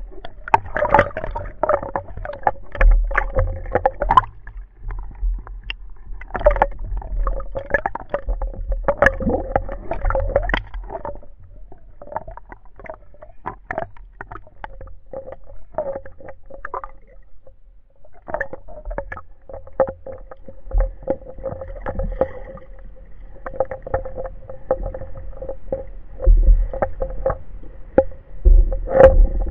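Underwater sound from a spearfisher's camera: dense, irregular clicking and crackling over a low rumble, with a steady hum through most of it, much like a boat motor heard through the water. The clicking thins out for a few seconds midway.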